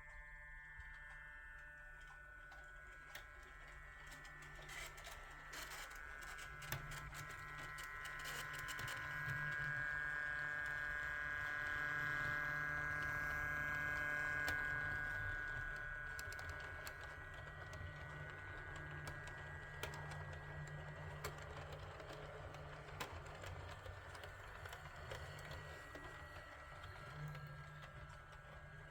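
A train passing: a whine of several steady tones and a low rumble build to a peak about halfway through and then fade away, with sharp clicks from the wheels as it approaches.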